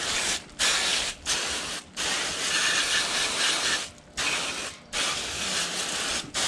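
Garden hose pistol nozzle blasting a hard spray of water onto plastic chainsaw housing parts, rinsing off degreaser. The spray stops and restarts sharply about six times.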